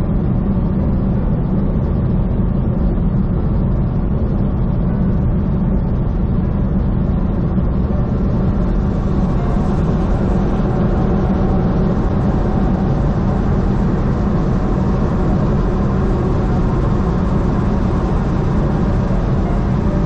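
Semi truck driving at a steady highway speed: a constant low engine and road drone that does not change.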